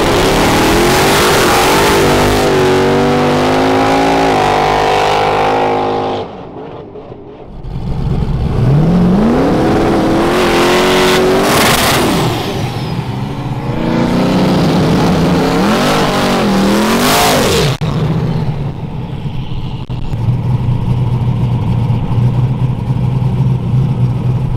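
Drag-race car engines revving and accelerating hard, pitch climbing and stepping up in several short runs, broken off abruptly about six seconds in and again near eighteen seconds. Over the last few seconds an engine idles steadily.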